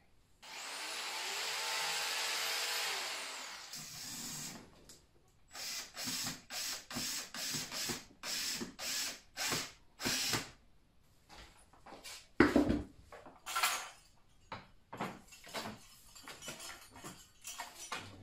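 Cordless drill running for about three seconds, its motor speeding up, holding and winding down, while a curtain-pole bracket is fixed to the wall. It is followed by a quick run of about ten short, sharp bursts, then a loud knock and a few lighter knocks in the second half.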